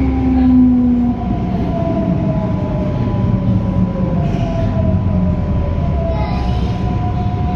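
Traction motors and inverters of a Madrid Metro 9400-series AnsaldoBreda dual-voltage train, running on 1500 V DC, whining over a low running rumble. The whine glides slowly down in pitch, the sign of the train slowing under electric braking, and settles on a steady tone near the end.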